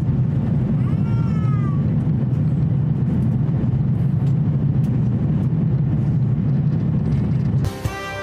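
Steady cabin rumble of an Airbus A350-1000 climbing after takeoff: airflow and its Rolls-Royce Trent XWB engines, heard from inside the passenger cabin. About a second in, a brief high, wavering cry sounds over it, and background music starts near the end.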